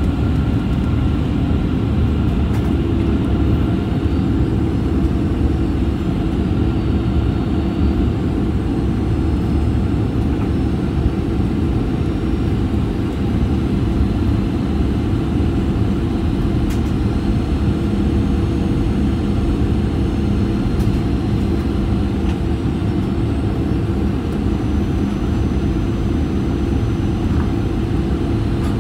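Steady cabin rumble of a Boeing 737-800 on approach, its CFM56-7B turbofans and the rushing air heard from inside the cabin. A steady hum comes in about three seconds in, and a lower hum joins about two-thirds of the way through.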